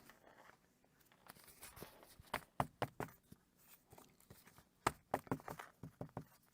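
Paper pages of a book being handled, with soft rustling and a few clusters of light clicks and knocks.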